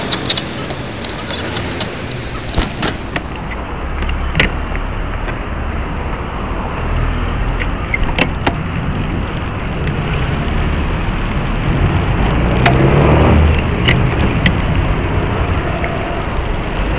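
Riding noise of a bicycle picked up by a camera mounted on its frame: a steady rush of tyre, road and wind noise with sharp clicks and rattles from the bike over bumps. A motor vehicle passes about thirteen seconds in, its pitch falling.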